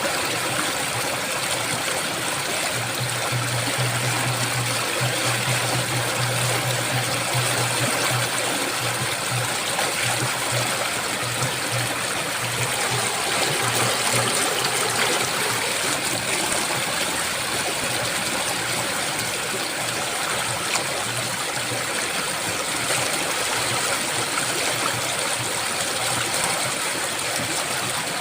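Flowing river water rushing steadily, an even continuous wash of water noise. A low steady hum sounds underneath, coming and going.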